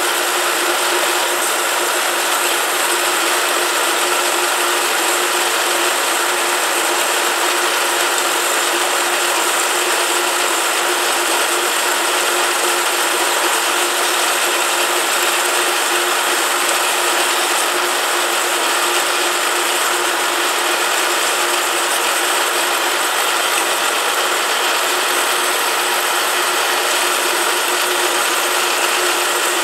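Boice Crane 14-inch bandsaw, converted for metal cutting, sawing slowly through a thick block of hot-rolled mild steel: a steady, even chatter of the blade teeth in the cut over a constant hum from the drive.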